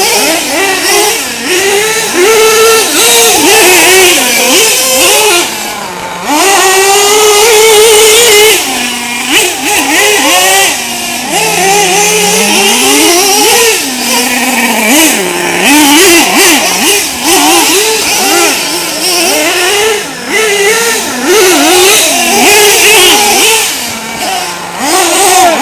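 Small two-stroke nitro (glow-fuel) engines of 1/8-scale RC racing trucks, revving high and easing off in quick succession as the trucks accelerate down straights and brake for corners. The pitch keeps sweeping up and down in a high-pitched buzzing whine.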